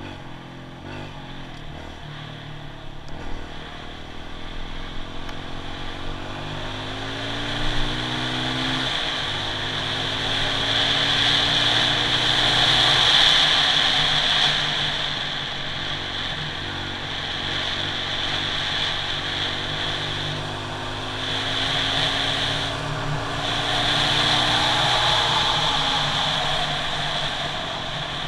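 Kawasaki KLX140G dirt bike's single-cylinder four-stroke engine running under way and pulling through the gears. Its pitch climbs and then drops at each upshift, about three times. Wind noise rushes over the microphone, louder as the bike picks up speed.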